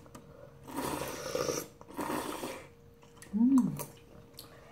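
Instant ramen noodles being slurped up in long, noisy sucks, twice in the first three seconds. About three and a half seconds in comes a short hummed vocal sound that rises and then falls in pitch.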